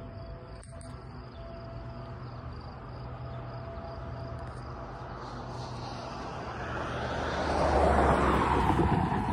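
A road vehicle passing close by: its tyre and engine noise swells from about six seconds in, peaks around eight seconds and falls away, over a steady low hum.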